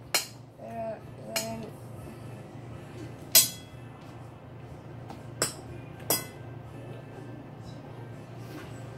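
A fork clinking against a ceramic plate about five times as a boy cuts up a sausage, the loudest clink about three seconds in, over a steady low hum.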